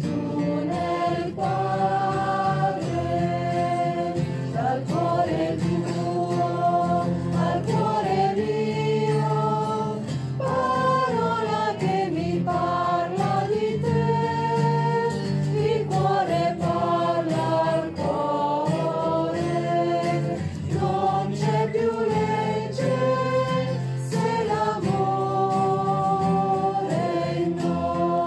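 Background music: a choir singing a slow song over a steady low accompaniment.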